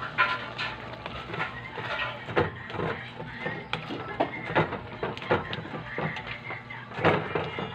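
Spoon scraping and knocking against a metal wok as banana heart is stirred, in irregular strokes about a second apart.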